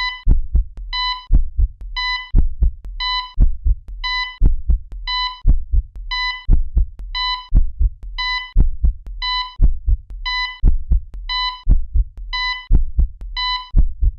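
Heartbeat sound effect: deep thumps in pairs, with a short electronic beep like a heart monitor's about once a second.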